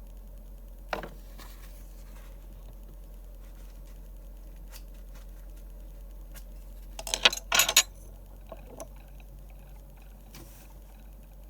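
Small drawing-desk sounds: a pen or tool and paper being handled, with scattered light clicks and a brief flurry of sharp, scratchy taps about seven seconds in, over a steady low hum.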